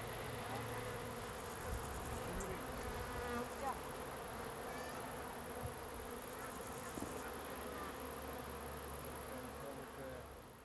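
Bees buzzing steadily around flowering garden plants, with a few short high chirps scattered through. The sound fades out at the end.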